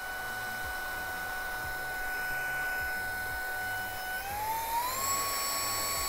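OPOLAR cordless mini electric duster running in blow mode on its low setting: a steady high motor whine over rushing air. A little past four seconds in it is switched to the high setting, and the whine glides up in pitch and settles there.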